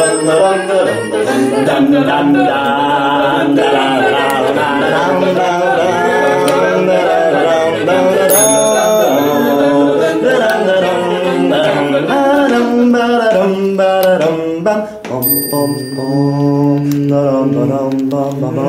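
Soundtrack music of layered a cappella voices chanting and singing. A bright bell rings about eight seconds in and again about fifteen seconds in.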